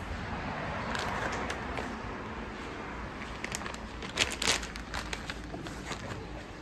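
Soft plastic baby-wipes packet crinkling as it is handled, with a cluster of sharp crackles about four seconds in.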